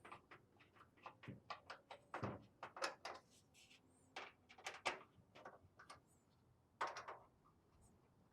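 Irregular light clicks and knocks of sheet-steel cabinet panels and brackets being handled, with the screws still loose so the panel can be aligned.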